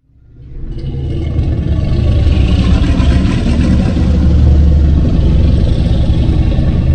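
Monster-film sound effect: a loud, deep rumbling sound with a rough hiss on top, building up over about a second from silence and then holding steady.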